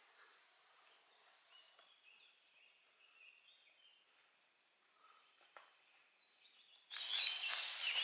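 Faint bird chirps over quiet room tone, with one soft click a little past halfway. About seven seconds in, it cuts to much louder outdoor ambience with birds singing.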